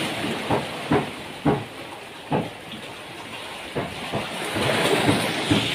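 Sea water washing against rocks, a steady hiss that swells about five seconds in, with a few soft knocks scattered through it.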